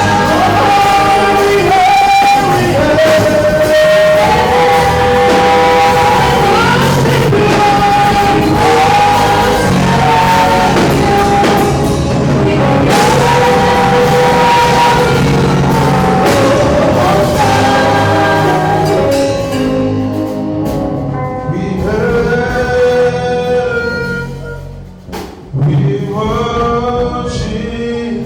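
Gospel music: voices singing long held notes over a full band accompaniment. The sound thins out about twenty seconds in, drops away briefly near the end, then the singing comes back.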